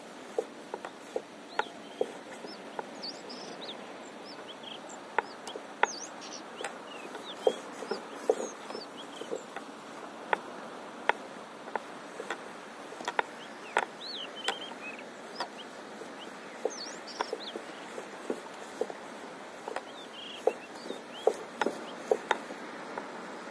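Small waves lapping against a paddleboard's hull: irregular sharp slaps and plinks, one to three a second, over a steady wash of water.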